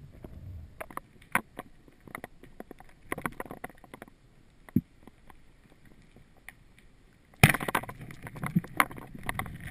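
Underwater sound picked up by a diving camera: scattered sharp clicks and knocks over a low watery rush, with a sudden louder burst of noise and clicking about seven and a half seconds in.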